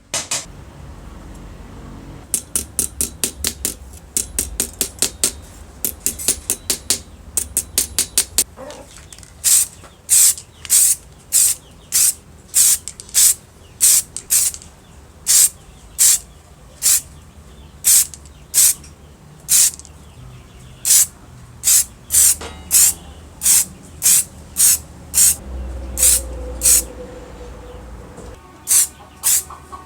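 Short bursts of spray paint hissing from an aerosol can, over and over: a quick run of them, then about two a second, as a part is being repainted.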